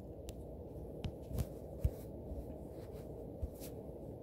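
Steady low background hum with a few faint, short thumps and clicks scattered through it.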